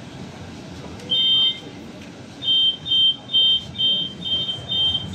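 Tram's door warning beeper sounding: one electronic two-tone beep, then a steady run of about six beeps, roughly two a second, the signal that the doors are about to close.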